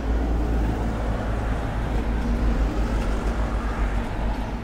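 Steady low rumble with a faint hiss of background noise.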